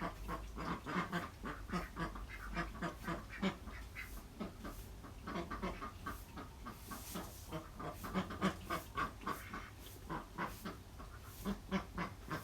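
Ducks quacking, many short calls in quick succession.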